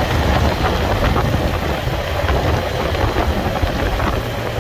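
Motorcycle running at a steady cruise of about 60 to 70 km/h, with the rush of wind over the microphone mixed into a continuous low engine rumble.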